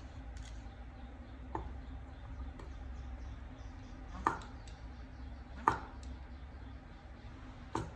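Steel cleaver chopping through a white vegetable onto a wooden cutting board: four separate chops, the middle two loudest.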